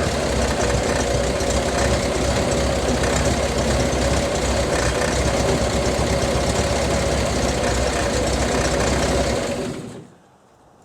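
1964 Chevrolet Corvair Spyder's turbocharged air-cooled flat-six engine idling steadily, then stopping near the end.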